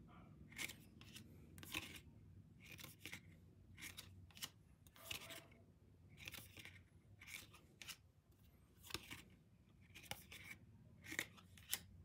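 Faint, irregular swishes and light clicks of glossy photo cards sliding against each other as they are shuffled and dealt out of a stack by hand, about one or two a second.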